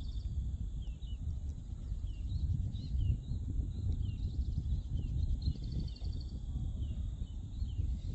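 Wind buffeting the microphone with a steady low rumble, over high, short falling chirps from a calling animal repeated about every half second, with a few brief high trills.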